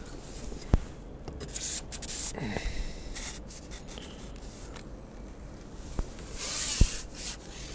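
Rustling and rubbing handling noises with a few sharp clicks and knocks, the loudest rustle about six and a half seconds in ending in a knock.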